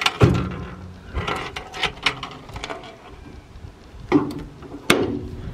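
Under-tray toolbox door on a ute being swung shut and its T-handle latch worked: a string of metal clicks and knocks, with a sharp latch click near the end.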